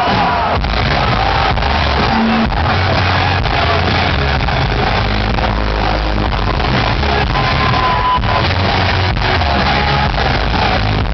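Loud music over a stadium concert PA, heard from within the crowd, with fans shouting and whooping over it.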